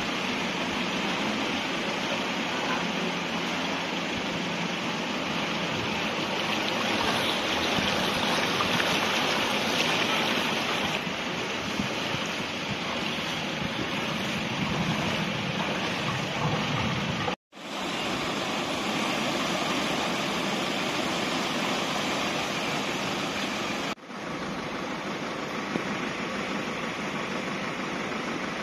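Steady rushing of floodwater flowing through a street, an even hiss-like noise, broken by a brief dropout a little past halfway.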